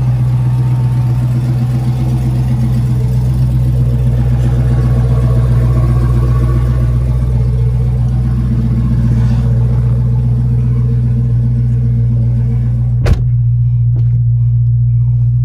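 Dodge Challenger SRT Hellcat's supercharged 6.2-litre V8 idling steadily while warming up after a cold start. A single sharp thud comes about 13 seconds in, and after it the engine sounds muffled.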